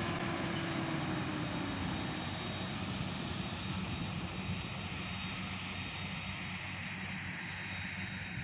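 Forage harvester's engine and chopper running steadily under load, heard from inside the cab as a continuous drone that eases off slightly after a few seconds.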